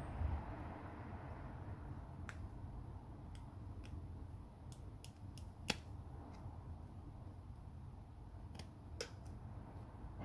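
Scattered light clicks and taps of small repair tools on a phone, over a low steady hum, with one sharper click a little past halfway.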